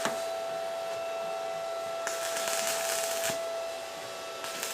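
Arc welding: the welding machine's steady electrical whine, with a burst of sizzling arc crackle starting about two seconds in and lasting about a second and a half, and a short one near the end.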